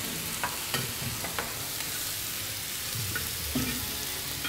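Raw chicken pieces sizzling as they are sautéed in onion masala in a wide pan, with a steady frying hiss. A metal spatula scrapes and clinks against the pan several times as the chicken is stirred.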